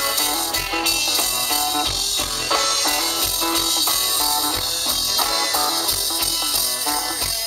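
Live blues band playing: electric guitar, banjo and bass over a drum kit.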